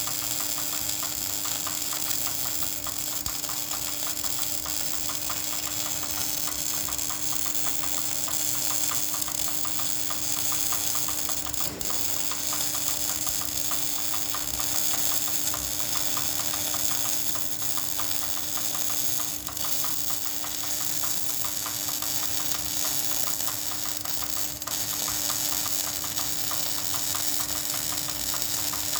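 Electric arc welding on a vertical-position (3G) test weld: the arc gives a steady crackling sizzle, with a steady low hum underneath.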